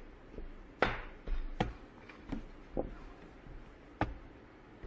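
Sharp knocks of things being banged down on a tabletop, five in about four seconds at uneven spacing.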